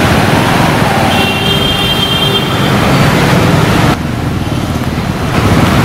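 Road traffic on a flooded street: car engines running as the cars drive through standing water, a steady wash of noise that drops abruptly about four seconds in.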